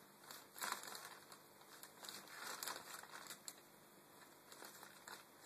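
Thin plastic carrier bag crinkling in short, irregular bursts as a cat paws at it, mostly in the first three seconds, then faint.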